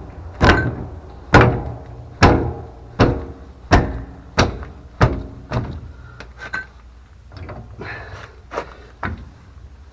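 Repeated hammer blows on metal, a little faster than one a second, each with a short metallic ring, striking a seized pipe union to break it free. After about five seconds the blows turn lighter and further apart.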